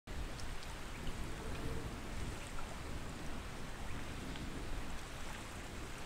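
Steady rushing water noise with a low rumble and faint scattered ticks.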